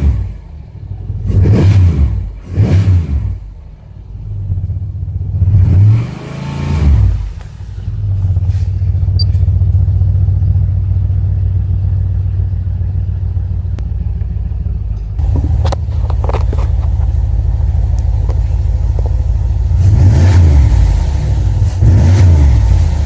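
A 5.3-litre LS4 V8 through a Flowmaster exhaust, blipped with the throttle several times in quick succession, settling to a steady idle, then revved again twice. The engine is answering the new accelerator pedal assembly that was fitted to cure a P2138 reduced-power fault.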